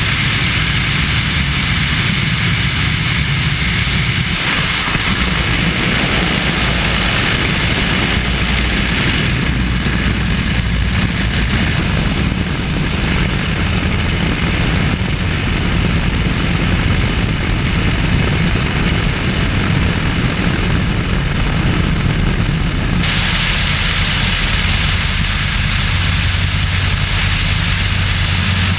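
Stearman biplane's radial engine and propeller running steadily in flight, mixed with heavy wind rush on a camera mounted outside on the wing. The high wind hiss shifts several times and drops back over the last few seconds, leaving the engine's low hum stronger.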